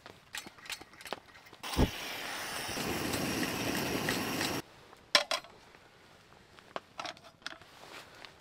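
Cooking in a fry-bake pan on a camp stove: light clicks and knocks, then a steady hiss for about three seconds that begins with a thump and cuts off suddenly. After it comes a short ringing metal clink and a few more clicks.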